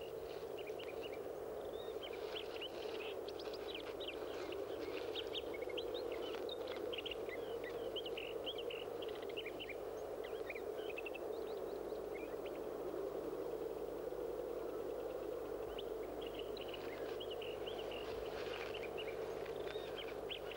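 Many short, high bird chirps over a steady low background rush. The chirping thins out in the middle and picks up again near the end.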